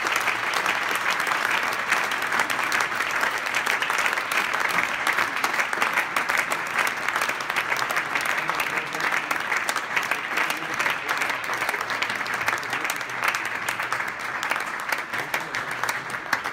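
Spectators clapping steadily, applause that marks the end of the match; it thins out a little near the end.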